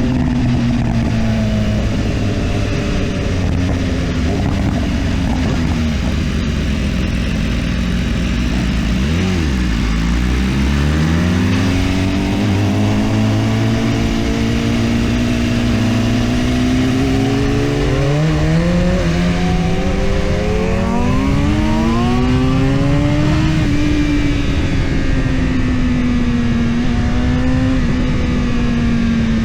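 BMW S1000RR inline-four engine holding a steady high-revving note, then dropping in pitch about a third of the way in. It pulls up again in a long rise of pitch in stages, then settles back to a steady note near the end, with a rush of wind noise underneath.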